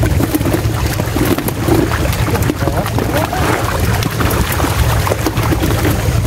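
Tilapia thrashing and splashing in the shallow water of a drawn-in seine net while hands grab at them, with many short irregular splashes and slaps over a steady low rumble.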